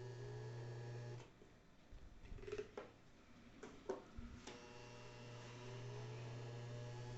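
Electric fan motor (an old Mondial Maxi Power motor fitted in an Arno Alívio fan) humming, stopping about a second in. A few clicks and knocks follow, then the motor starts humming again about four and a half seconds in, its pitch rising as it speeds up.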